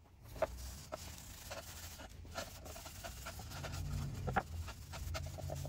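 A cloth towel rubbing along a hatchet's wooden handle, wiping off wood polish that has soaked in. A faint, soft scuffing with a few light taps.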